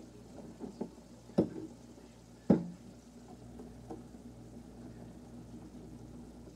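Kitchen clatter: cookware and utensils knocking, with two sharp knocks about one and a half and two and a half seconds in, the second the loudest, and a few lighter clicks, over a steady low hum.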